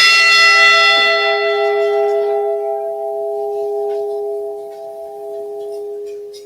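Memorial bell struck once, ringing and slowly fading. The higher overtones die within a couple of seconds and the low hum lasts longest, then drops away sharply near the end. It is a single toll for one lost crew member whose name has just been called.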